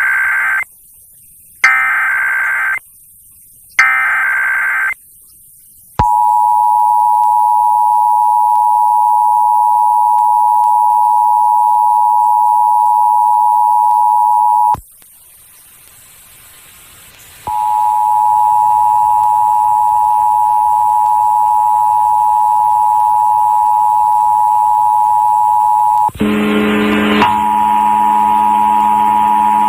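Emergency Alert System test alert: three short, harsh data bursts of the SAME header, then the two-tone EAS attention signal, a steady dual tone of 853 and 960 Hz. The tone cuts off about 15 s in and starts again about two and a half seconds later, and near the end a low buzz joins it.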